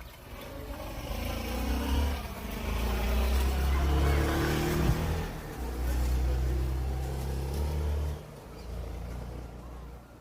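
A motor vehicle running close by: a low engine rumble that swells over the first few seconds and drops away about eight seconds in.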